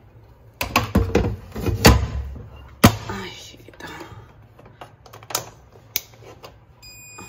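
A rice cooker's pot and lid being handled as rice and water go in for lontong: a handful of sharp knocks and clunks with handling noise between them. Near the end a run of high electronic beeps at changing pitches begins.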